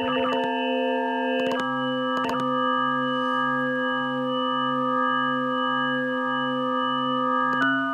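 FFT-based additive synthesizer built from sine-wave oscillators, holding a sustained organ-like chord of pure steady tones. The set of partials switches to a new chord a few times, with small clicks at each change, and a low tone pulses about twice a second underneath.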